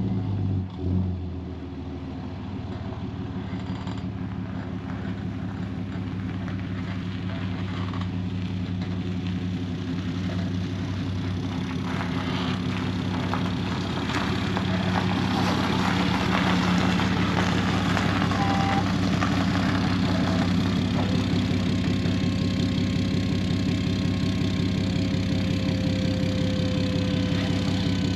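Tow truck's engine running as it pulls in and backs up with a Jeep in tow on wheel dollies, growing steadily louder as it comes closer. A steady thin whine joins in for the last several seconds.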